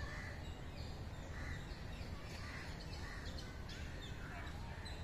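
Crows cawing, a series of harsh caws roughly one a second, over a steady low rumble of outdoor background noise.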